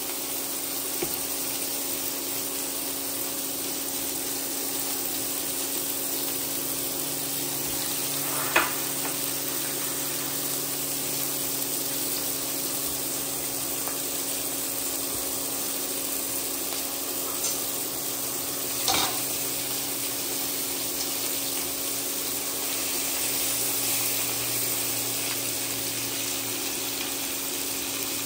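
Pork belly slices sizzling steadily in a hot pan, over a steady low hum, with two short sharp knocks, one about a third of the way in and one past the middle.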